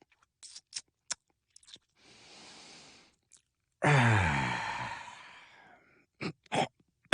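A man making 'dad noises': a few small mouth clicks and a breathy exhale, then about four seconds in a loud, long groaning sigh that falls in pitch and trails away, followed by two short grunts.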